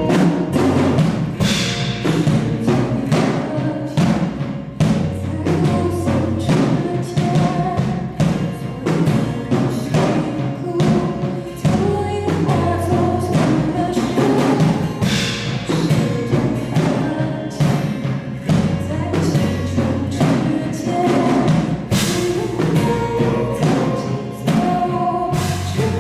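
Live band music: a busy passage driven by many drum and percussion hits over held instrument notes and a shifting bass line.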